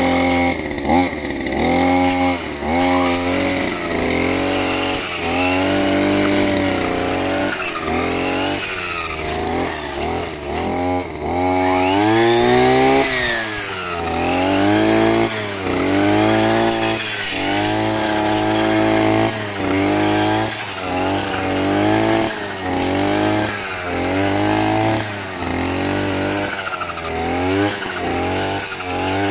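Kraftech brush cutter engine driving a 40-tooth circular saw blade, revving up and dropping back again and again, about every one to two seconds.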